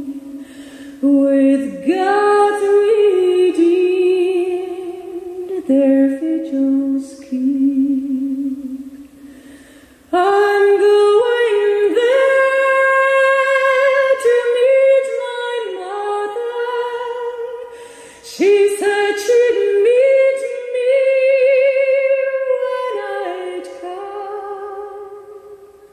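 Background music: female voices singing a cappella in harmony, in long phrases of held notes with vibrato separated by short pauses.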